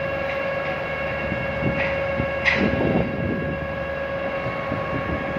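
Steady machinery hum of a ship and floating dry dock: a constant drone of several even tones over a low rumble. A sharp knock stands out about two and a half seconds in.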